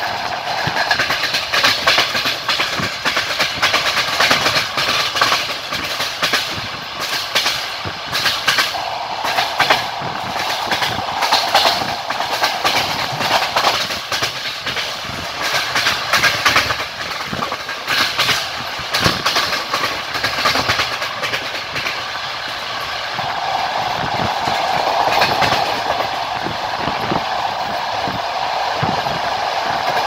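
Passenger train wheels clattering over rail joints at speed: a steady rushing running noise with many sharp, irregular clacks.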